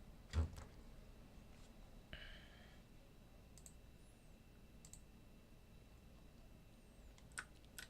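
Faint, scattered computer mouse clicks, with one louder knock about half a second in.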